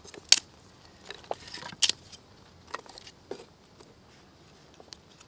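Dry wooden sticks being put into a clay stove, clattering and knocking against one another in a scatter of sharp knocks. The loudest knocks come just after the start and near two seconds in.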